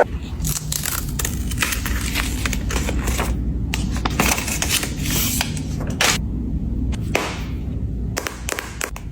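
Packaging being handled: cardboard and plastic scraping and rubbing, with a run of sharp clicks and taps.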